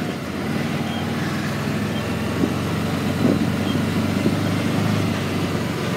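A vehicle's engine running steadily with a low, even hum.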